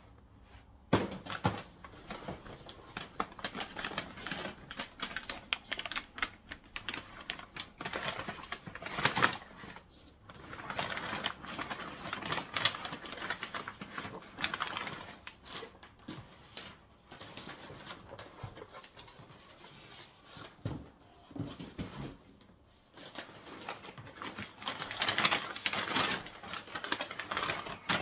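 Handling of a cassette deck: irregular clicks, taps and rustles of hard plastic parts, with sharper clicks about a second in and near the middle, and a busier run of clicking near the end.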